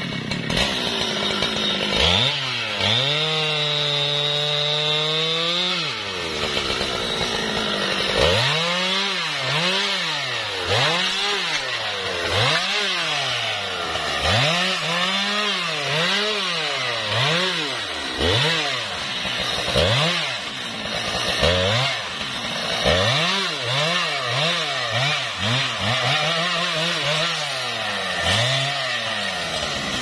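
Husqvarna 395 XP two-stroke chainsaw idling, then held at high revs for about four seconds. From about eight seconds in it is revved up and down roughly once a second while cutting branches.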